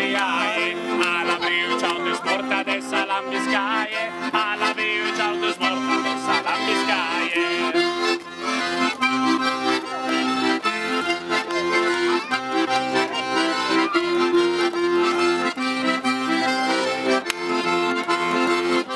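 Accordion playing a traditional local tune, its held notes and chords changing in a steady rhythm.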